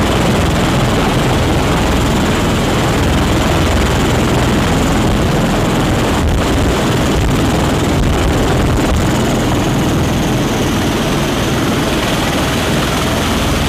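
MV-22B Osprey tiltrotor, its proprotors and turboshaft engines running in a loud, steady din as it hovers down and touches down close by, heard through the open rear ramp of another Osprey.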